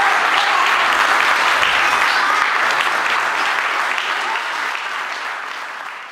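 Audience applauding, the clapping steady at first and then fading away through the second half.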